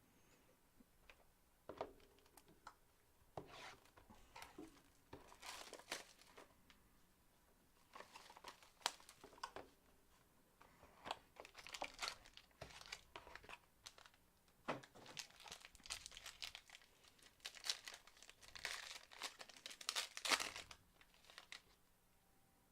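Plastic wrapping on sealed trading-card packaging being crinkled and torn open by hand, in many short, irregular rustles and rips.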